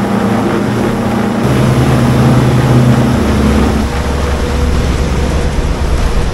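Bass boat's outboard motor running at speed, with steady wind and water rush over it.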